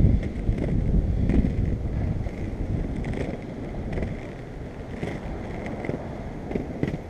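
Skateboard wheels rolling on a concrete sidewalk: a steady low rumble with short clicks as the wheels cross the slab joints, and wind on the microphone.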